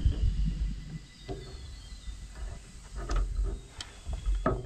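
Scattered short knocks and clinks of a spanner working on rusted metal tractor parts, a few times over a few seconds, over a steady low rumble.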